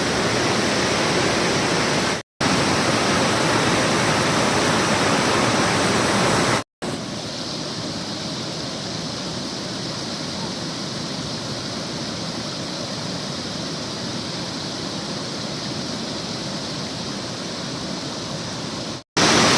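Waterfall in flood: fast-rushing floodwater making a steady, dense rush of noise. It is broken by three short silent gaps where the recording cuts, and after the second gap it is a little quieter and duller.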